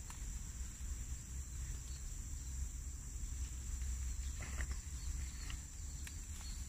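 Insects droning steadily at a high, even pitch, over a low rumble, with one faint short sound about four and a half seconds in.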